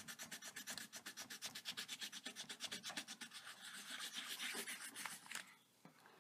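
Fast back-and-forth scribbling of a thick yellow colouring stick on paper, about six scratchy strokes a second, colouring in a drawn sun; the strokes ease off and stop near the end.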